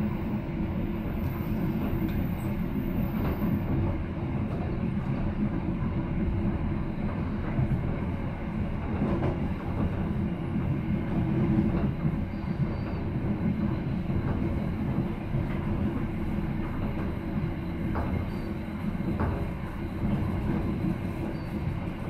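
Train running along the track, heard from on board: a steady low rumble of wheels on rail, with a few faint clicks now and then.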